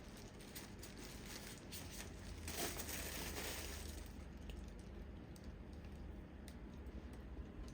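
Packaging padding being handled: light clicks and taps, with a burst of rustling about two and a half seconds in that lasts just over a second.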